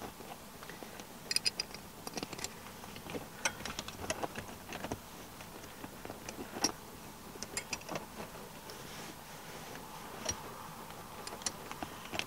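Irregular light clicks, taps and metallic clinks as seat frame parts and bolts are handled and shifted, trying to line the seat up for bolting.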